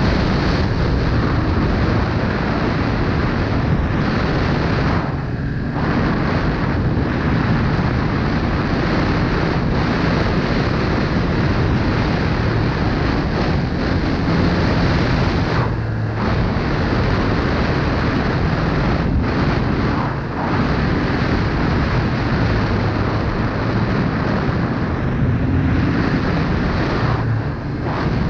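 Arctic Cat snowmobile engine running steadily as the sled travels along a groomed trail, with wind rushing over the microphone. The engine sound dips briefly about four times.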